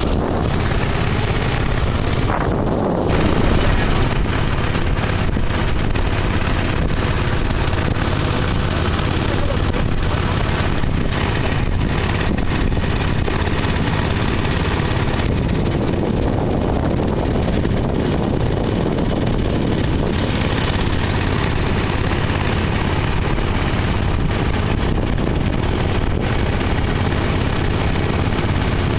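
A river raft's small outboard motor running steadily at cruising speed.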